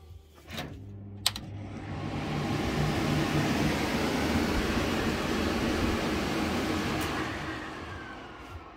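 Klarstein Mariana 60 telescopic cooker hood: a click as the slide-out front panel is pulled, then the extractor fan spins up to a loud steady rush of air with a low hum. About seven seconds in another click comes, and the fan winds down with a falling whine.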